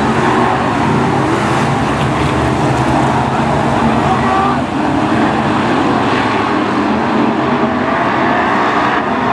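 Several BriSCA F1 stock cars racing at once, their V8 engines running hard together in a loud, steady blend, with overlapping engine pitches shifting up and down as the cars pass.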